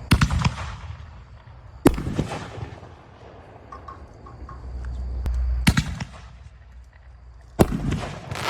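1.75-inch consumer canister-shell fireworks firing and breaking: four sharp bangs, at the start, about two seconds in, near six seconds and near the end, each trailing off in echo. A low rumble builds just before the third bang.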